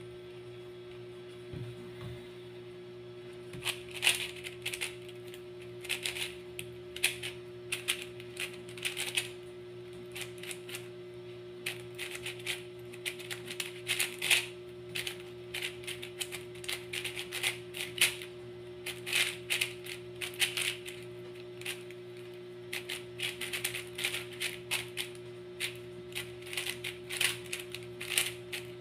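YJ MGC 4x4 speedcube being turned rapidly by hand as it is scrambled: quick runs of light plastic clacks as the layers rotate, with short pauses between runs, starting about three and a half seconds in.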